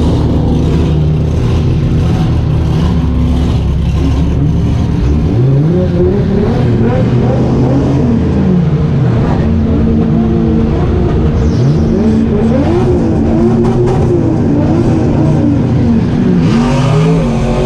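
Drift car engine running, then revving up and down over and over, its pitch rising and falling about once a second.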